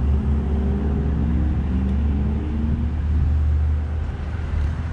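Steady low rumble of a running motor vehicle close by, with a faint wavering hum over it in the first three seconds.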